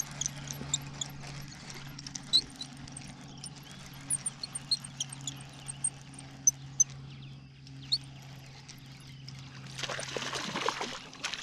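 A hooked bass splashing at the surface about ten seconds in, over a steady low hum and scattered short high chirps.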